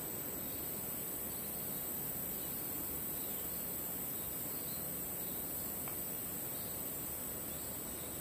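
Steady tropical forest ambience: a constant high-pitched insect drone over an even background hiss, with a few faint, scattered chirps.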